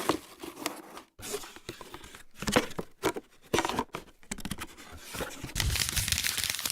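Packaging being handled and opened: irregular crinkling, tearing and scraping, with scattered sharp clicks and knocks that grow denser near the end.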